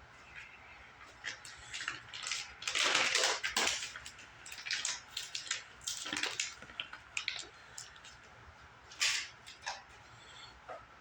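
Irregular metal clicks, clinks and scrapes of a trailer hub and spindle nut being turned and handled while the nut is lined up for its cotter pin, with a longer scraping rattle about three seconds in.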